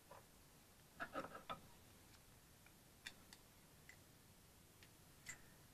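Small metallic clicks and taps of a steel pick prying valve keepers out of a valve spring compressor tool: a quick cluster of clicks about a second in, then single scattered clicks.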